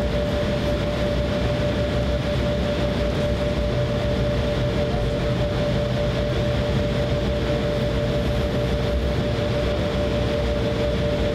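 Cabin noise inside an Embraer E170 airliner taxiing, its GE CF34 turbofan engines running at taxi power: a steady two-note whine over a low rumble.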